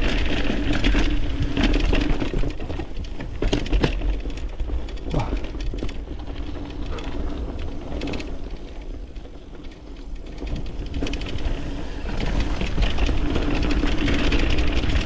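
Mountain bike riding down a dirt trail: tyres rolling over rough ground with a low rumble and frequent knocks and rattles from the bike. It gets quieter for a few seconds in the middle, then louder again.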